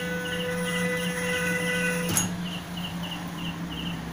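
Stepper motor of a DIY Arduino vending machine running at a steady speed with an even whine as the mechanism moves a bottle. It cuts off about two seconds in with a sharp click, over a low steady hum and a faint high chirp repeating two or three times a second.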